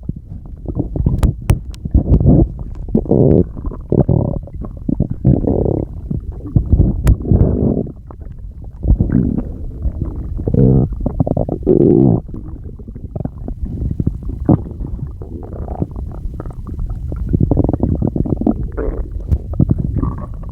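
A person's stomach growling and gurgling: a long, irregular run of low gurgles and rumbles, with a few sharp clicks among them.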